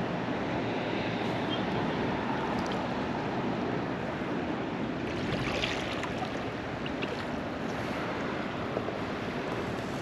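Steady rushing wind and small waves lapping at shoreline rocks, with a few faint ticks about halfway through.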